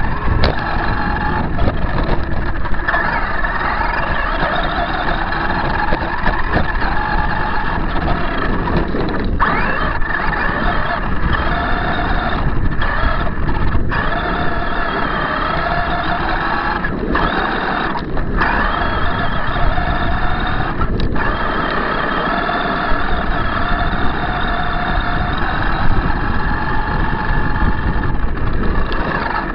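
Motor and gears of a Losi High Roller RC truck whining, rising and falling in pitch with the throttle and cutting out briefly several times, over a steady rumble and rattle of the truck driving across gravel, picked up by a camera box mounted on its roof.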